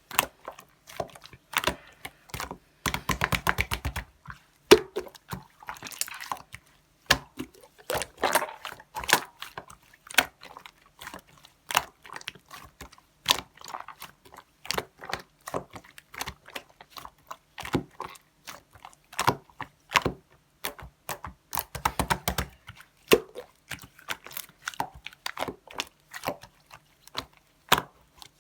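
Clear slime being squished, pressed and pulled by hand, giving a steady run of sticky clicks and pops, with quick runs of crackling about 3 seconds in and again past the 20-second mark.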